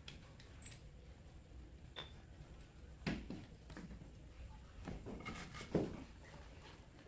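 Hand tools being handled on a concrete floor: scattered light metallic clicks as a socket wrench and a pipe extension are fitted together on a crankshaft nut, then a group of dull knocks as a wooden plank is set down, the loudest near the end.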